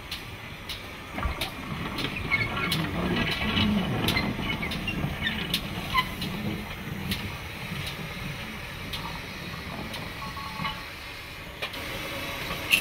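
GWR 6400 class 0-6-0 pannier tank steam locomotive moving slowly: irregular clanks and knocks from the running gear, with short high squeaks and a low rumble. Near the end comes one sharp metallic clank as a ground point lever is thrown.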